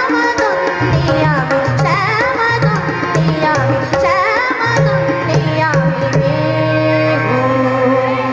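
A girl sings an ornamented Indian melody, sliding between notes, to her own harmonium, with tabla strokes and the deep bass drum of the tabla pair accompanying her.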